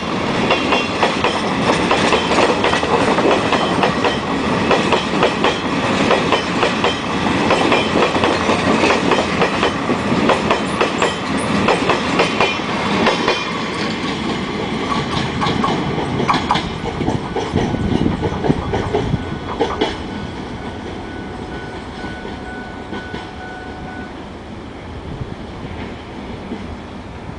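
Coal train's wagons rolling past on the rails, the wheels clacking rapidly over rail joints over a steady rumble; the sound grows weaker in the last third as the train moves away.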